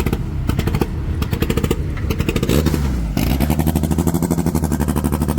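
Turbocharged Honda B18 engine in a front-wheel-drive Civic drag car, idling with a rapid, choppy firing pulse. About two and a half seconds in it revs up and then holds a steady, higher speed.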